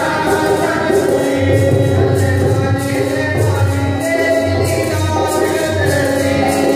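Devotional kirtan: men singing to a harmonium, with a two-headed hand drum keeping a steady beat.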